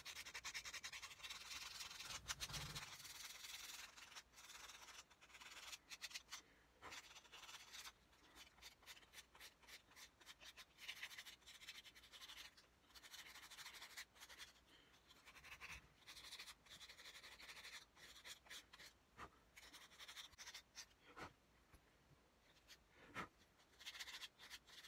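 Sandpaper rubbed by hand over a small carved wooden fishing-lure body: a faint, irregular scratching in many quick short strokes.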